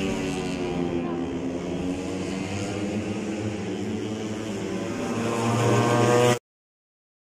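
Small racing motorcycle engines at high revs on a track straight, a steady buzzing note that grows louder as a bike approaches. The sound cuts off abruptly a little over six seconds in.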